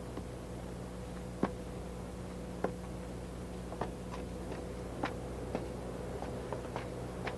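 Faint, irregular light clicks or taps, roughly one a second and closer together near the end, over a steady low hum.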